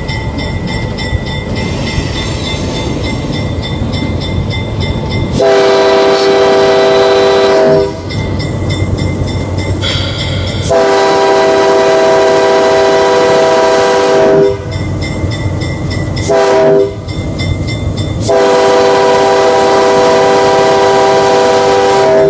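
Locomotive air horn sounding the grade-crossing signal: two long blasts, a short one, then a long one. Each blast is a chord of several notes. Between the blasts the locomotive's engine runs with a low rumble.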